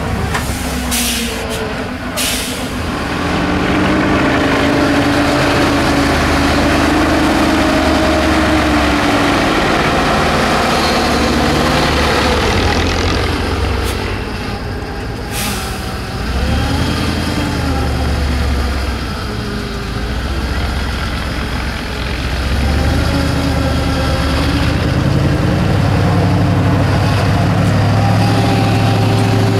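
ZIL-131 6x6 truck engine working under load as the truck crawls over steep off-road ground, its pitch rising and falling with the throttle and holding higher and louder near the end. A few short hisses of air from the air brakes near the start and about halfway through.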